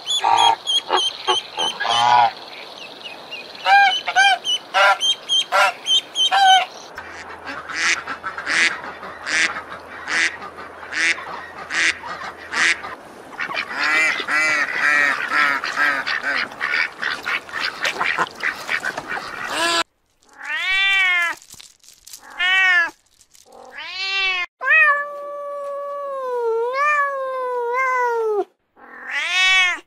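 Waterfowl calling for about the first twenty seconds, a busy run of honks and quacks. Then a kitten meows: a few short meows, one long wavering meow, and another starting near the end.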